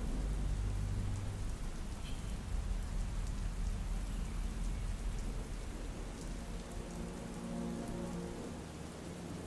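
Steady soft rain, with a low rumble of thunder dying away in the first second or two. Soft held ambient music tones come in over the rain in the second half.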